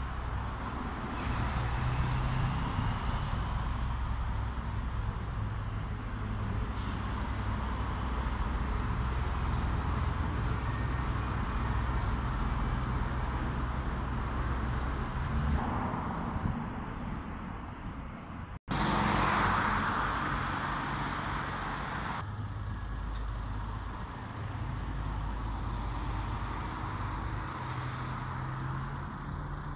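Road traffic: a steady low engine hum, which breaks off for an instant about two-thirds through, then a louder vehicle passes before the hum of traffic settles again.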